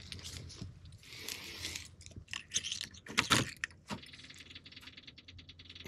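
Keys jangling and clicking at the ignition of an Avant 528 compact loader, with knocks and rustling as the driver settles in. About four seconds in, a faint steady high tone with fast, even ticking sets in as the ignition comes on, before the engine is started.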